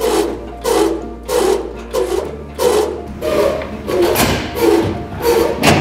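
Background music with a steady beat, a little under two beats a second.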